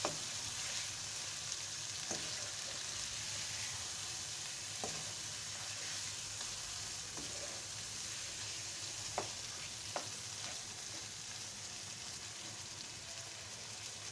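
Chicken, tomatoes and spices sizzling in hot oil in a wok as they are stir-fried with a wooden spoon, the masala being browned. The spoon knocks against the pan a few times.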